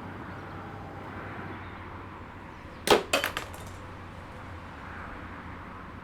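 A sharp crash about three seconds in, followed by four or five quicker, smaller knocks within half a second, over steady background noise.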